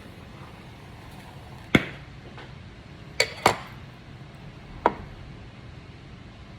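Four sharp taps and clicks of tweezers and small metal tools against the work, over a steady faint hiss.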